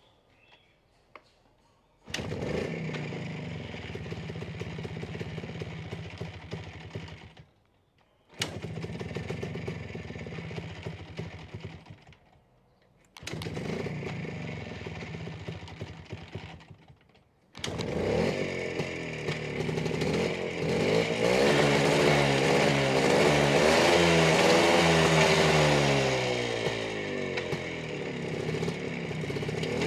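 Small motorcycle engine kickstarted: it catches, runs a few seconds and dies, three times over. On the fourth start, about seventeen seconds in, it keeps running and is revved up and down repeatedly.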